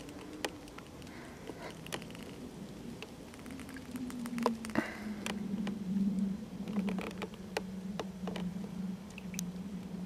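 Wood frogs calling in a pond: scattered short, sharp clucks and clicks. Under them runs a low steady hum that falls slightly in pitch and gets louder about halfway through.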